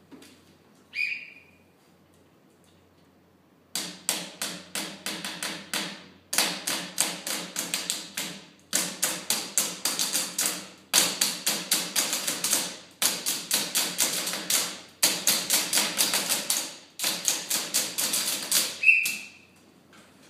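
A short whistle blast, then sticks beating junk objects in a fast drilled rhythm, about four or five strikes a second in phrases of about two seconds each. A second whistle blast near the end closes the sequence.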